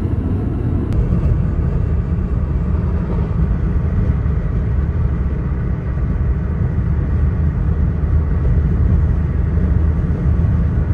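Steady low road and engine rumble inside the cabin of a car moving along a highway.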